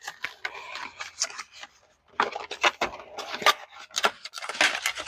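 Cardboard and paper packaging being ripped open and handled: irregular tearing, crinkling and clicking, with a short pause partway through.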